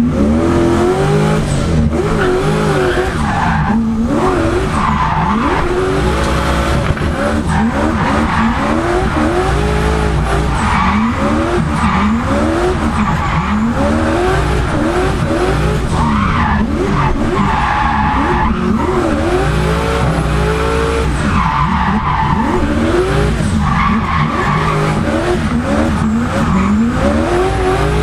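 Turbocharged Lexus 1UZ-FE V8 in a drift car, heard on board, revving up and dropping back again and again under throttle. Tyres squeal in several stretches as the car slides.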